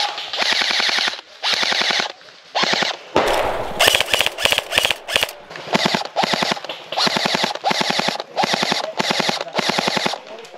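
Airsoft guns firing in short rapid-fire bursts of about half a second each, one burst after another, each a fast rattle of shots. A brief rush of noise comes about three seconds in.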